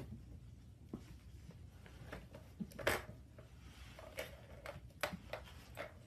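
Kittens playing on a wooden floor: scattered light knocks, taps and scuffles as a cardboard oats canister and small toys are bumped about. The loudest knock comes about three seconds in.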